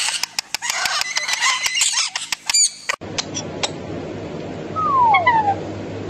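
Indian ringneck and quaker parakeets chattering, with a quick run of sharp clicks. After an abrupt change about three seconds in, a blue Indian ringneck parakeet gives two falling whistled calls close together.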